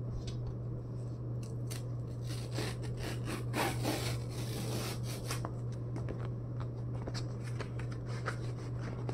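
A paper FedEx envelope being handled and opened by hand: paper rustling and crinkling with small clicks, busiest from about two and a half to five and a half seconds in, over a steady low hum.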